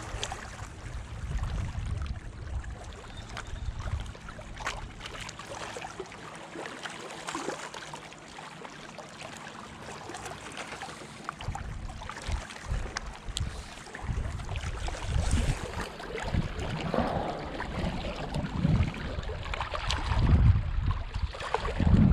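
Wind buffeting the microphone in gusts, easing off for a few seconds midway and then picking up again, over small waves washing against a rocky shoreline.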